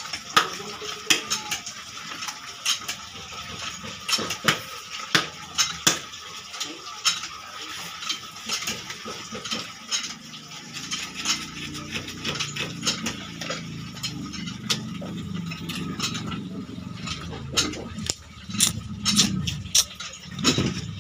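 A large knife being driven through a blue marlin's body by striking its back with a bar: repeated sharp metallic knocks, about one or two a second, thinning out in the middle and picking up again near the end.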